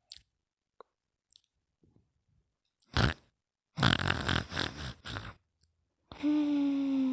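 Snoring played back very slowly: a few small clicks, then noisy breaths about three and four to five seconds in, and near the end a long pitched tone that sinks slightly.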